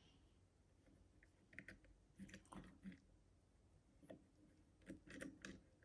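Faint scattered clicks and light scrapes of a lever-lock pick and tension tool working inside an Easi-T lever lock, in a few short clusters.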